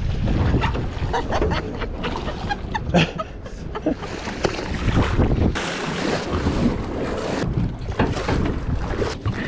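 Wind buffeting the microphone over sloshing, splashing sea water beside a boat, with scattered knocks and clicks as a fish is brought alongside and netted.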